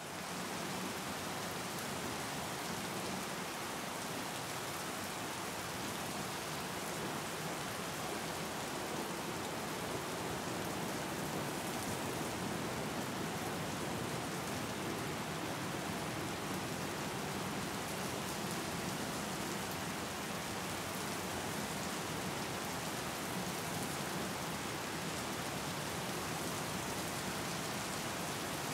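Steady rain falling onto open water: a dense, even hiss of countless drops splashing on the surface.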